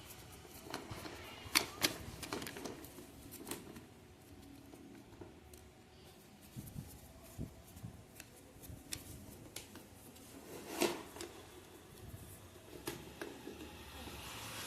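Scattered sharp clicks and knocks of plastic desk-fan parts and a screwdriver being handled as the fan is taken apart, a few louder clicks standing out about one and a half, two and eleven seconds in.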